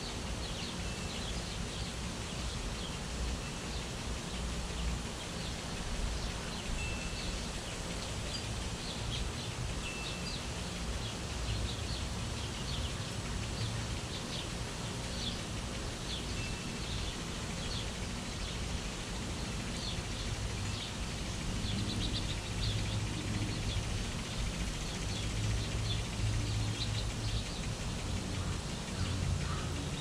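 Small birds chirping over and over, with a few short whistled notes mixed in, over a steady hiss. A low hum grows stronger about two-thirds of the way through.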